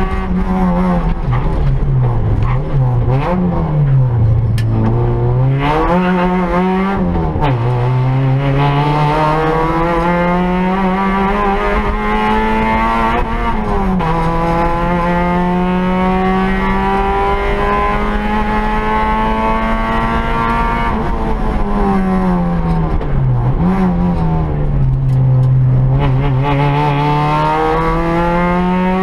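Peugeot 106 rally car's engine at full throttle, heard from inside the cabin. The revs climb steadily and fall sharply at each gear change, with several quick shifts and blips in the first few seconds, long pulls through the middle, and another run of shifts a little before the end.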